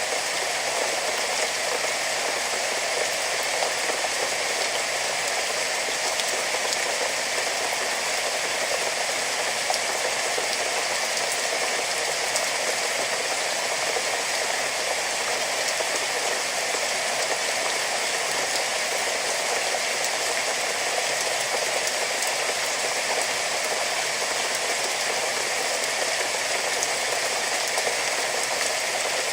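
Steady rain falling: a dense, even hiss of rain with fine scattered drop ticks throughout.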